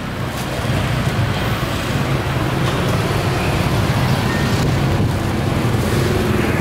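A steady low engine hum with the general noise of street traffic.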